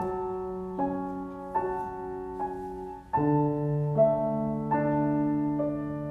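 Solo grand piano playing a slow, sustained passage, a new note or chord about every 0.8 s over held bass notes, with the bass dropping lower a little past halfway.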